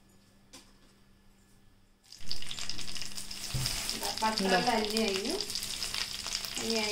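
Quiet for about two seconds, apart from a faint steady hum. Then melted butter in a nonstick frying pan suddenly starts sizzling loudly, foaming as it heats.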